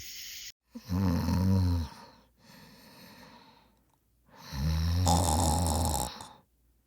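A person snoring: two long, loud snores about three and a half seconds apart, with a quieter breath between them.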